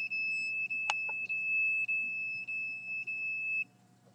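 A handheld detector sounds its alarm, a steady high-pitched electronic tone that wavers slightly a little under twice a second and cuts off about three and a half seconds in. A single sharp click sounds about a second in. The owner takes the alarm going on and off as a sign of being pulsed with energy.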